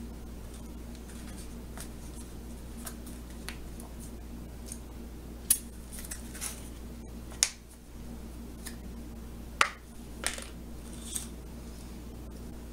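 Light plastic clicks and taps as small waffles are pried out of a plastic mold tray and set on a small plastic plate, with a few sharper clicks around the middle, over a steady low hum.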